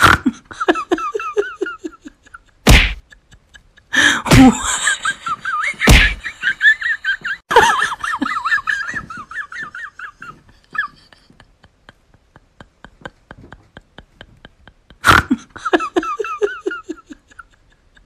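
Comedy sound-effect track: five loud sharp whacks, four of them close together in the first half and one near the end. Under them runs a wavering, high-pitched pulsing sound over a fast, even ticking.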